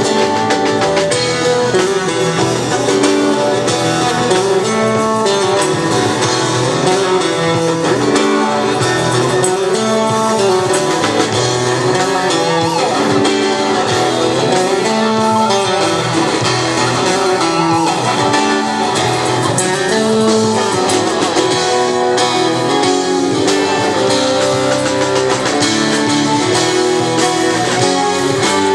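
Live band playing guitar-led instrumental music, the guitar carrying a melodic line of held and changing notes.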